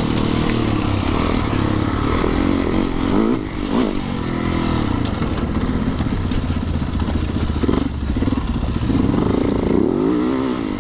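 Yamaha YZ450FX's single-cylinder four-stroke engine being ridden off-road, revving up and down repeatedly, with a few brief knocks.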